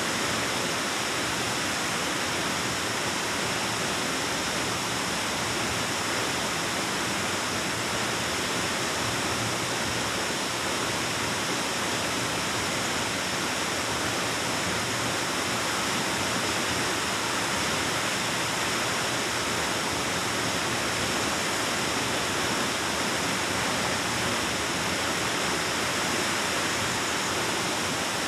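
Waterfall rushing steadily, a constant even hiss of falling water echoing in a cave.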